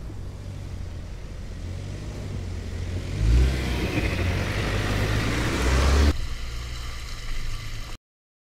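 Mini Cooper S Countryman ALL4's turbocharged four-cylinder petrol engine pulling steadily as the car climbs an off-road slope. The tyres churning through mud and grass grow loud from about three seconds in while it passes close. The sound drops about six seconds in and cuts off abruptly near the end.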